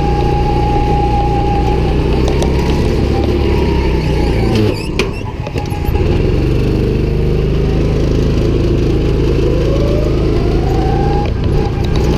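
Go-kart engine running at speed on the track. Its note drops and the sound dips for a moment about five seconds in, then climbs again.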